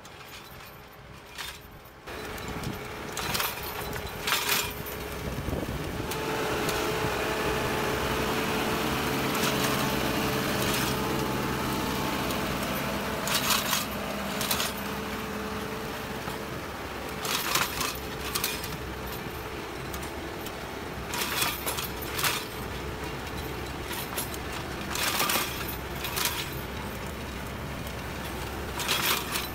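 Tractor engine running steadily under load, pulling a disc-type inter-row hoe through dry soil. Sharp knocks and rattles come every few seconds from the discs and soil. The sound gets louder about two seconds in, as the machine comes close.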